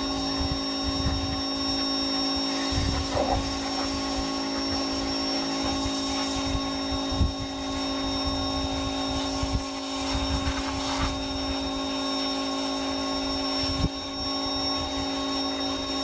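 A power tool's motor running steadily at constant speed, a continuous even hum, with a few light knocks and low rumbles over it.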